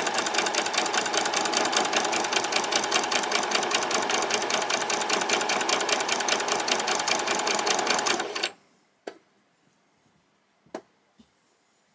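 Domestic electric sewing machine stitching a seam at a steady speed, with a rapid, even stitch rhythm. It stops suddenly about eight and a half seconds in, and two faint clicks follow.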